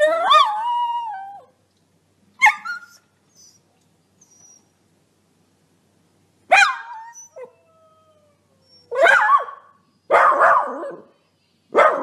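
Dog barking in separate bursts, about six barks in all. The first is a long, howling bark that falls in pitch. A thin, falling whine comes between barks about midway.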